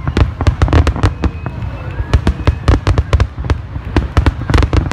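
Rapid barrage of aerial firework shell bursts, with many sharp bangs a second overlapping over a low rumble.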